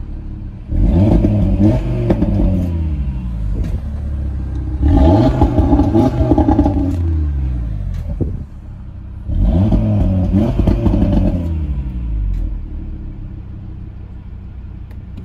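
Audi TT RS 2.5-litre turbocharged five-cylinder engine revved three times, each rev rising sharply and then sinking back toward idle.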